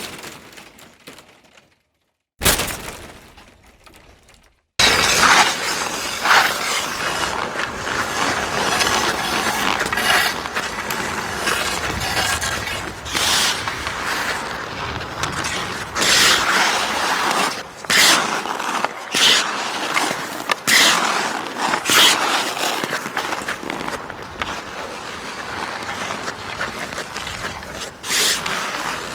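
Ice hockey play sounds. One sharp crack rings out about two seconds in. From about five seconds on there is a continuous hiss, broken by many sharp cracks and clacks of sticks and puck.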